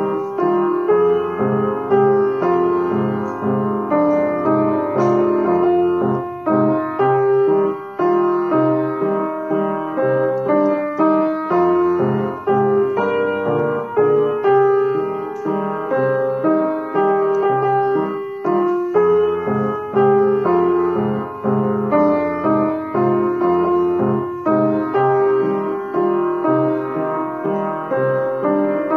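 Piano playing a calm piece: a melody over a steady lower accompaniment, its notes sustained and overlapping.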